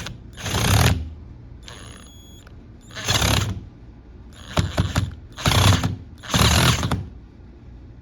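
GardenJoy 21V cordless drill driver running in short bursts, five in all, as it drives screws further in.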